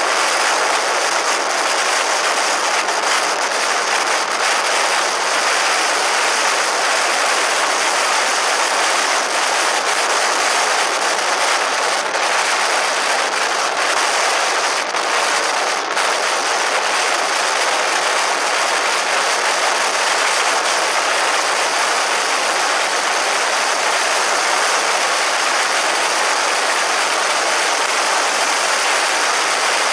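Steady rush of wind and road noise from a motorcycle cruising at constant speed, picked up by a camera mounted on the bike, with no distinct engine note above it.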